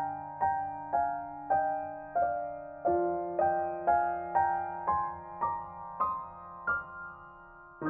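Solo piano playing a slow, calm instrumental piece: single notes struck about twice a second over held bass notes. The bass shifts about three seconds in, the melody then climbs step by step, and near the end one note is left to fade.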